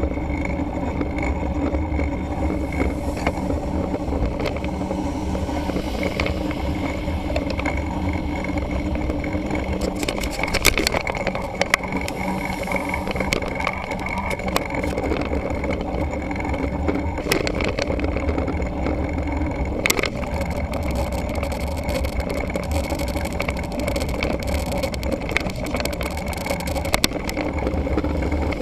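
Riding noise from a mountain bike on a road, picked up by a camera mounted on the bike: a steady rumble of wind and tyres with a few sharp clicks or knocks, about ten, twelve, twenty and twenty-seven seconds in.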